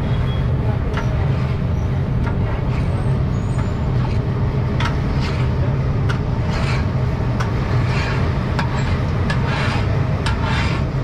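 Eggs frying in oil in a large iron wok, a long metal spatula scraping and pushing them across the pan again and again, over a steady low hum.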